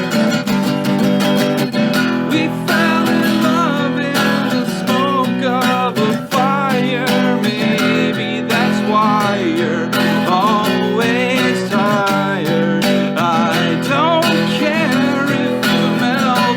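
Acoustic guitar strumming chords, with a wavering sung melody over it from about two and a half seconds in.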